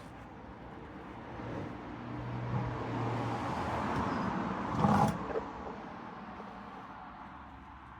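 A road vehicle passing by, swelling to its loudest about five seconds in and then fading away.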